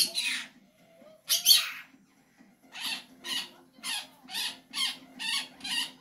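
A pet conure making short, harsh, raspy squawks: a loud one at the start and another about a second and a half in, then from about halfway a steady run of about two a second.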